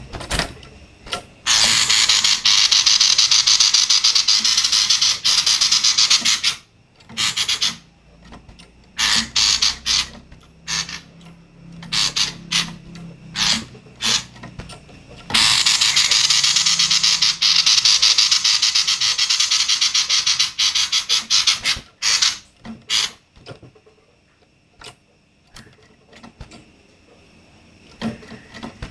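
Female common iora giving harsh, fast-pulsing rattling "konslet" calls. Two long rattles of about five and six seconds, the first starting about a second and a half in and the second about halfway through, with short chattering bursts between and after them.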